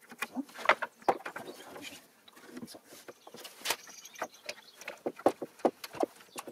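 One-handed plastic bar clamps being squeezed tight on a glued wooden frame: irregular sharp clicks and clacks from the trigger ratchet and from the clamps knocking against the wood.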